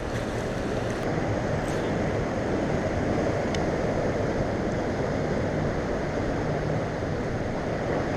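Steady rush of moving water with wind buffeting the microphone.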